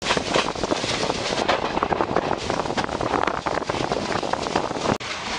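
Diva–Sawantwadi Passenger train running at speed, heard from the coach window: a steady rumble and rattle of the wheels and coach, mixed with wind buffeting the microphone. The sound drops out briefly about five seconds in.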